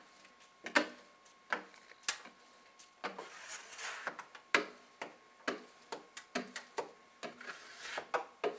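Plastic hard card worked lightly over wet window film on flat glass: a string of sharp clicks and taps, about two a second, with a rubbing scrape about three to four seconds in.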